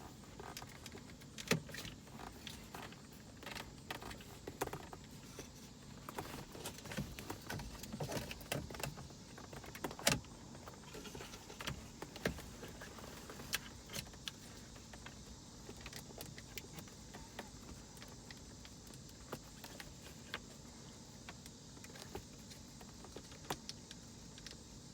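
Scattered small clicks and rattles of plastic interior trim and wiring connectors being handled while working the connectors loose under a BMW E46 trim panel, with one sharper click about ten seconds in.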